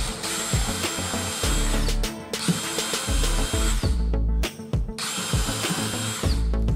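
Cordless DeWalt drill driver running in three bursts with a steady high motor whine, each burst ending as the motor spins down, driving a long screw through a timber spacer block.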